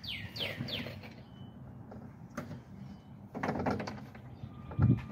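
Window glass and regulator being handled inside a car door as the glass is freed from the regulator's loosened clamp. There are a few short squeaks in the first second, a scrape about three and a half seconds in, and a louder thump near the end.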